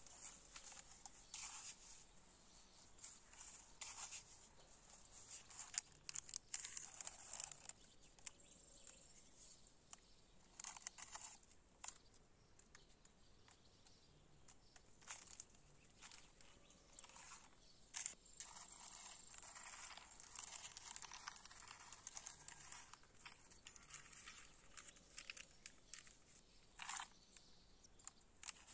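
Faint handling noises: short scratchy rustles and light clicks, coming irregularly.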